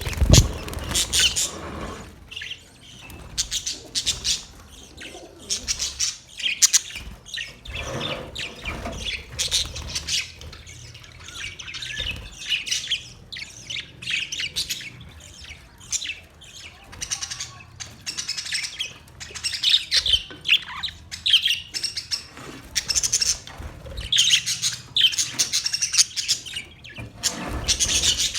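A flock of budgerigars chirping and chattering continuously in dense, overlapping short calls, with a few low thuds, the strongest in the first second.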